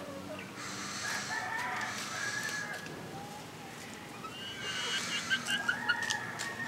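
Feral rooster crowing twice, each crow a long drawn-out call of about two seconds.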